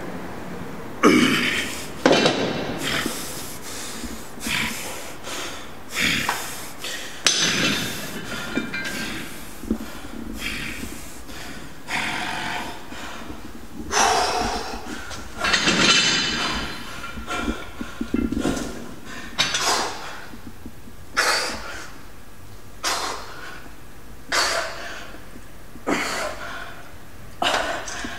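A man's forceful, rhythmic breaths and grunts, one about every second or two, as he strains through the reps of a heavy dumbbell set.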